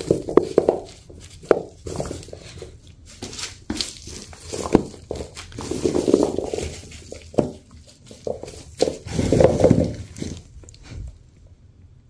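Potatoes being handled and set down on a hard surface: scattered knocks and clicks with longer rustling stretches, growing quieter near the end.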